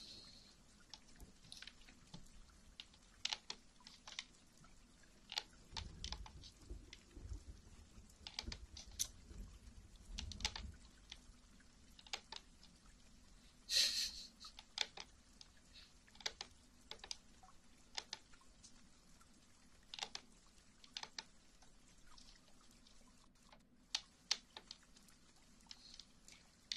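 Scattered light clicks and taps at an irregular pace. A low rumble runs for a few seconds from about six seconds in, and a louder, longer click comes about fourteen seconds in.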